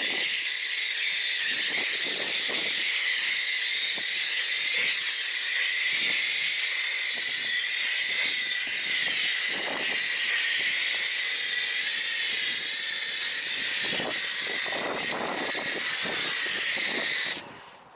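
Carbon Collective snow foam cannon on a pressure washer spraying foam with a steady loud hiss, which cuts off suddenly near the end as the trigger is released.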